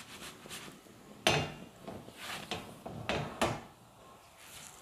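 A flat non-stick pan knocking and scraping on a gas stove's grate while a stack of pastry sheets toasting in it is turned over by hand: a handful of short knocks and rubs, the sharpest about a second in.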